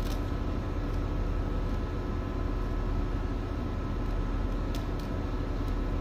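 Steady drone of heavy machinery with several held hum tones, and a few faint clicks as the steel wire rope is worked by hand.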